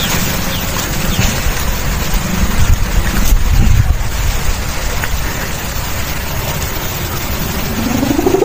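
Wind buffeting the microphone over the low, steady drone of a big Madurese kite's hummer (sendaren), which fades after about three seconds. Just before the end a buzzing tone rises in pitch.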